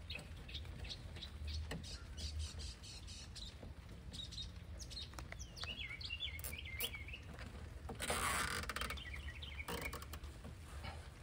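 Nylon zip ties being pulled tight through their locks: a run of small ratchet clicks, and a louder rasp about eight seconds in. Small birds chirp now and then.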